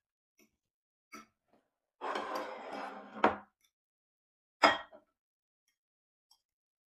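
Tableware handled on a table: a ceramic plate scraping and clattering for a second or so, ending in a sharp knock, then a single loud clink of a metal fork against a plate.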